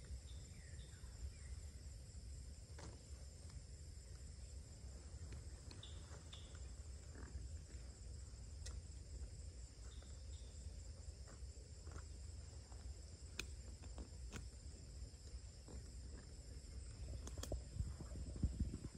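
Steady high-pitched insect chorus over a low rumble, with scattered faint clicks. Near the end the rumble swells and a few sharp knocks sound.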